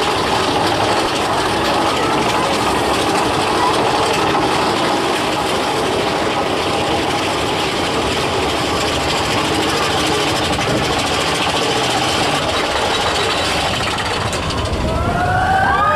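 Big Thunder Mountain Railroad mine-train roller coaster running along its track, a steady rumble and rattle heard from inside a car. Near the end riders start to scream.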